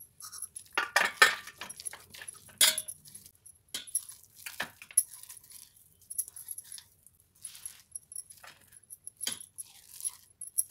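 A steel mixer-grinder jar and a stainless steel bowl knocking and scraping together as coarsely ground bean paste is scooped out by hand: irregular clinks, knocks and scrapes of metal on metal, with bangles jingling on the wrist.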